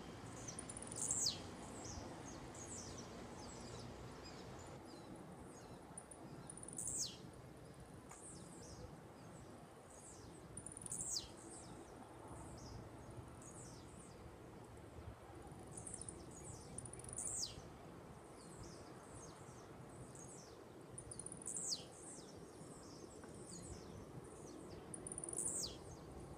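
A bird calling repeatedly: a high, sharp whistle that falls steeply in pitch, given about every four to five seconds, with softer high chirps in between, over a steady low background hum.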